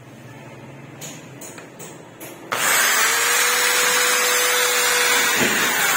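A few light clicks, then about two and a half seconds in a corded electric drill starts and runs at full speed, boring into a metal furring wall angle, with a steady whine held for about two and a half seconds.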